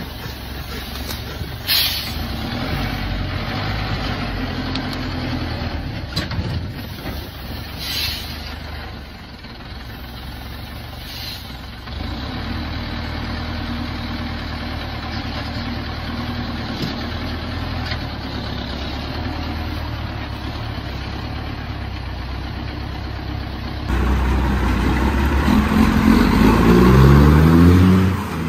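Heavy logging truck's diesel engine running steadily, with a few short air hisses in the first half. About 24 s in it cuts to a louder heavy truck engine revving, its pitch rising and falling.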